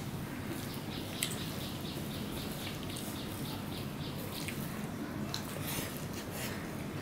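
Bare fingers mixing rice with curry on a steel plate: a run of short, soft, wet clicks and squishes, one sharper click about a second in, with chewing of a mouthful near the end.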